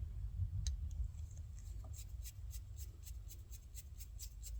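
Faint handling of a small screw in a billet aluminum shift knob: a light click about two-thirds of a second in, then from about two seconds in a run of soft, quick ticks, about four a second, as the screw is turned in.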